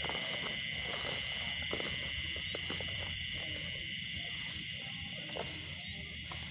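Steady night chorus of insects, a constant high-pitched trilling in several bands, with light rustling of footsteps through grass.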